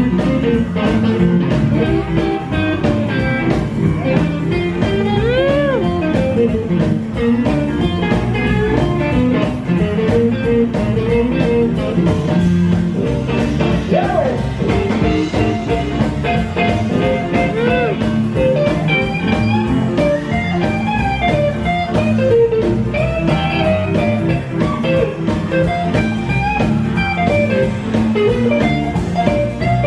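Live band playing a blues-flavoured instrumental passage: a Telecaster-style electric guitar plays lead lines with repeated string bends over an upright bass and drums keeping a steady beat.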